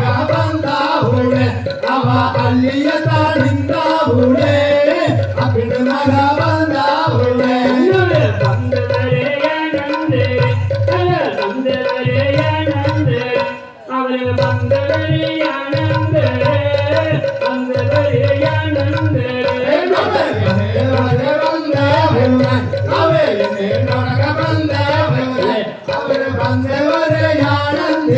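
Tamil folk music for a valli kummi dance: singing over a steady drum beat, with a short break about halfway through.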